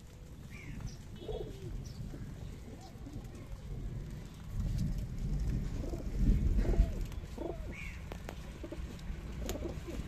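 A flock of domestic pigeons cooing repeatedly while pecking at scattered grain, with scattered light clicks of beaks on the ground. A low rumble rises about halfway through and then fades.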